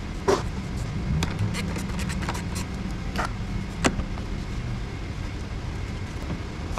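A vehicle engine running steadily at idle, with a few sharp clicks and knocks over it.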